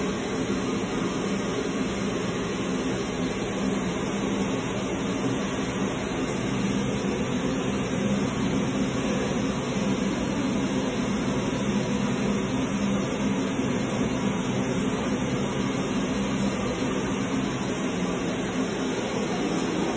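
A steady, even hum with a hiss over it, unchanging throughout: continuous machine or room noise.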